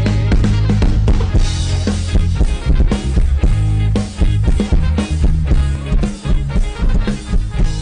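Background music with a steady drum beat and a strong bass line.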